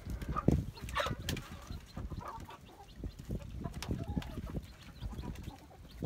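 Domestic hen clucking while her young chicks peep around her, in short scattered calls.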